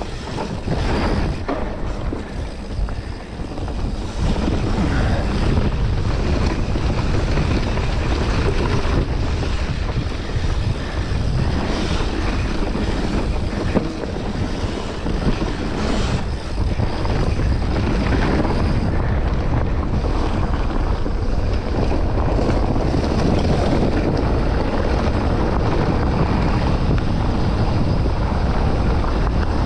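Steady wind buffeting on a rider's camera microphone during a fast enduro run, with a few short knocks over rough ground.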